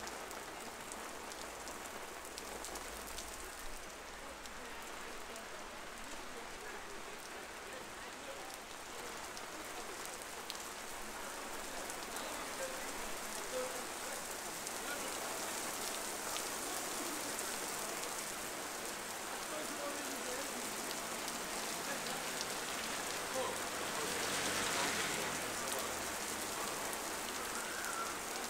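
Downpour of heavy rain falling on a street, a steady dense hiss of drops on the wet pavement that grows a little heavier. Near the end a louder rush swells up and fades.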